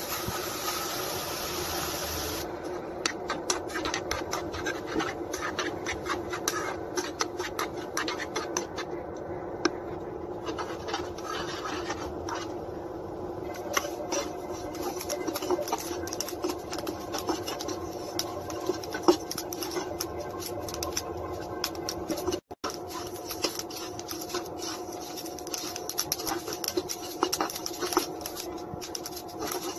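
Flaxseeds dry-roasting in a pan, crackling and popping in many small quick ticks as they heat, with a spatula scraping through them over a steady low hum.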